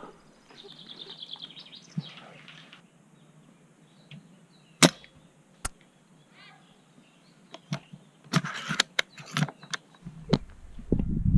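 Sharp snaps and clicks from a spring-powered bolt-action airsoft sniper rifle firing, a few seconds apart, the loudest about five seconds in.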